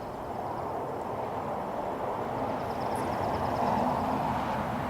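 A car passing on a road: a steady rush of tyre and engine noise that builds gradually and eases slightly near the end.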